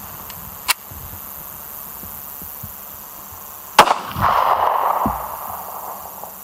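Glock 26 9mm pistol: a sharp metallic click about a second in, then a single loud shot just before the middle, followed by about a second and a half of echo rolling back.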